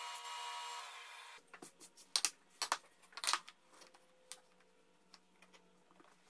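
Background music ends about a second in. Then come a few sharp clicks and knocks as small wooden panels are set down and pushed together on a workbench.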